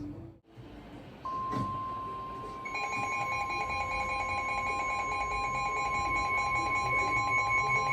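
Weather-radio warning alarm: a steady, piercing tone near 1 kHz comes in about a second in. About a second and a half later a second, higher alarm tone joins it with a slight pulse, signalling an incoming severe thunderstorm warning.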